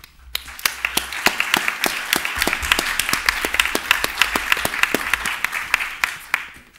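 Audience applauding: many people clapping, starting about half a second in and dying away near the end.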